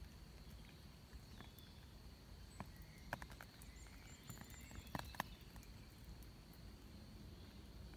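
Near silence: quiet outdoor ambience with a faint steady high tone and a few faint, sharp clicks in the middle.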